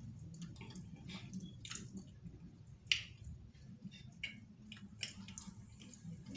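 Eating sounds: chewing with scattered wet mouth clicks and smacks as fufu and stew are eaten by hand, the sharpest click about three seconds in.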